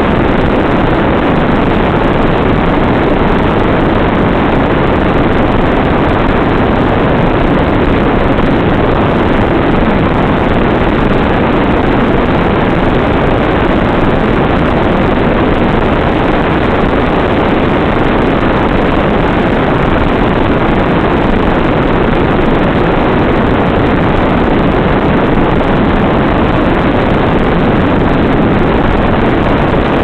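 Steady, loud rushing of wind over the onboard microphone of a Nano Goblin FPV flying wing in flight, even in level throughout, with no clear motor tone.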